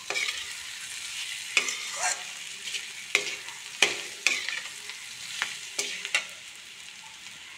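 Metal spatula scraping and stirring spiny gourd sabzi in an iron kadhai, a scrape every half second to a second, over a steady sizzle of frying.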